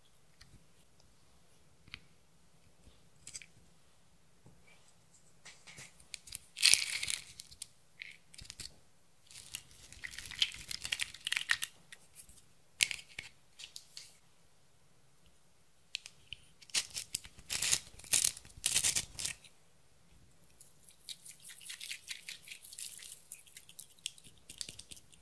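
Glitter, sequins and heart-shaped confetti being shaken and sprinkled from small containers onto clear slime in a glass dish: bursts of light rattling and crinkling with scattered taps, separated by quiet pauses. The loudest bursts come about seven seconds in and again around eighteen seconds.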